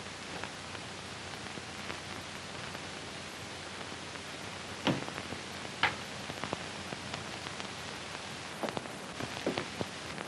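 Steady hiss of an old optical film soundtrack, with a few short sharp clicks and knocks about halfway through and near the end.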